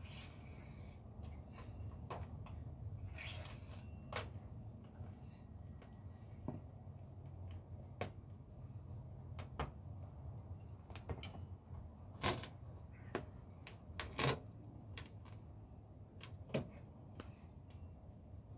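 Irregular light clicks and taps of hand tools at work on a car's windshield frame, with a few sharper knocks scattered through, over a steady low hum.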